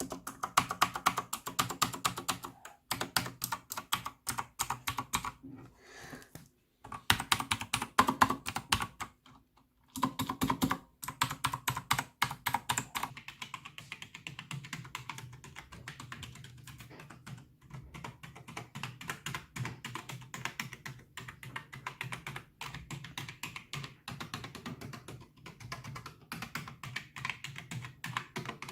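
Computer keyboard being typed on quickly: fast runs of key clicks with short pauses. After about thirteen seconds the typing becomes quieter.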